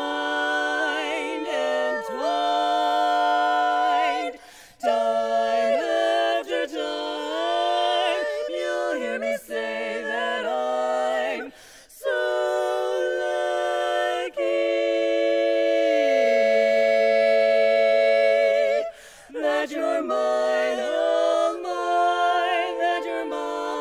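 Four women's voices singing a cappella in close four-part barbershop harmony, phrases ending in held chords. About 14 seconds in they hold one long chord for several seconds while the lowest voice steps down beneath it.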